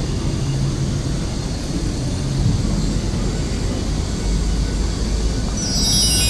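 Steady low rumble of city road traffic. Near the end a shrill squeal made of several high tones sets in and holds.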